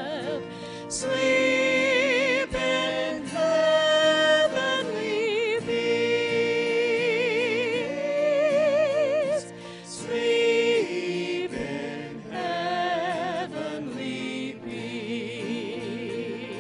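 Voices singing a Christmas song with strong vibrato, over acoustic guitar and band accompaniment.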